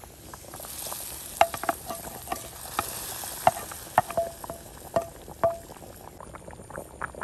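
Hot coconut-oil tempering of fried onion and curry leaves poured into simmering fish curry in a clay pot, sizzling. About eight sharp knocks come as the spatula taps the last of it out of the pan, several of them ringing briefly.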